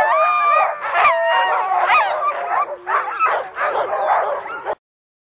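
A pack of harnessed sled dogs barking, yipping and howling all at once, the eager din of a team waiting to run. It cuts off abruptly near the end.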